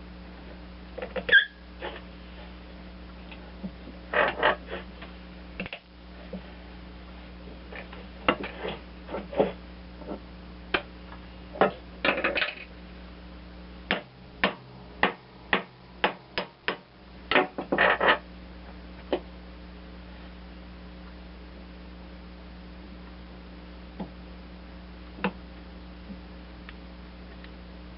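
Hand tools clinking and tapping on metal mower-deck parts: scattered sharp clicks and knocks, with a quick run of about eight even taps a little past halfway, over a steady low hum.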